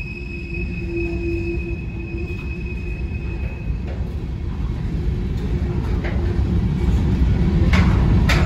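Covered hopper cars of a freight train rolling past: a steady low rumble of steel wheels on rail that grows louder, with a thin high wheel squeal that stops a little before halfway. Two sharp clicks near the end.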